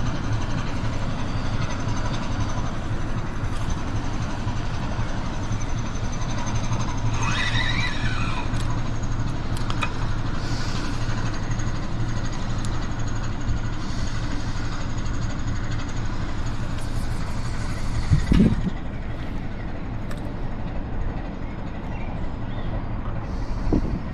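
A passing motorboat's engine running with a steady low hum across the water. A brief chirp sounds about seven seconds in, and a low knock about eighteen seconds in.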